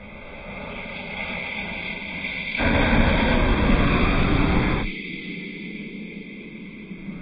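Rain falling on a puddle, a steady noise that swells gradually. A much louder rush of noise takes over about two and a half seconds in and cuts off abruptly some two seconds later.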